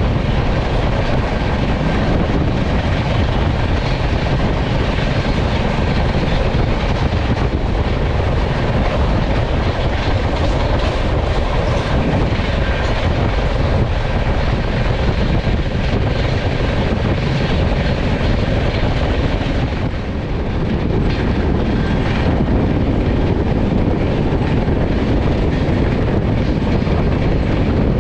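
Passenger train running at speed: a steady, loud rumble of wheels on the track, dipping briefly about two-thirds of the way through.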